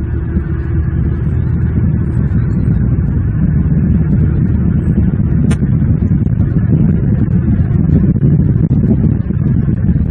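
Steady low rumble of outdoor background noise on the nest camera's microphone, with one brief click about five and a half seconds in.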